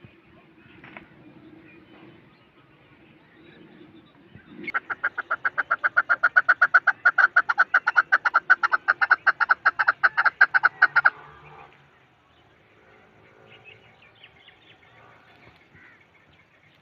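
Chukar partridge calling: a fast, even run of clucking notes, about seven a second, starting about five seconds in and lasting some six seconds.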